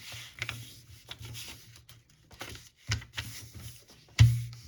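A sheet of paper being folded by hand: rustling and crackling with short, sharp crinkles, and a thump about four seconds in.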